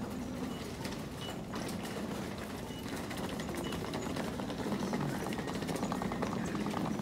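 Busy train station concourse ambience at the ticket gates: a steady hubbub of distant voices and footsteps, with a few short high beeps from the gates.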